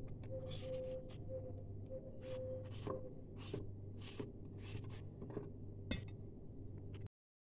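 Short scraping and rustling strokes with a few light clinks, as objects are handled, over a steady low hum; the sound cuts out abruptly near the end.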